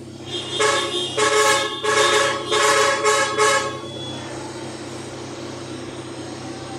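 Car horn honking about six short blasts in quick succession, stopping about four seconds in, over the steady hum of idling engines: the convoy signalling its departure.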